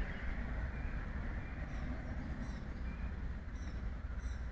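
Outdoor yard ambience: a broad rumble that fades over the first second, over a steady low rumble. Through it run a faint high tick repeating about three times a second and a few faint short high chirps.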